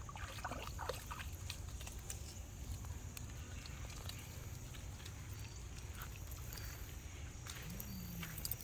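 Dogs moving about close by with faint snuffling and scattered light clicks, over a low steady rumble. A brief low rising-and-falling whine comes near the end.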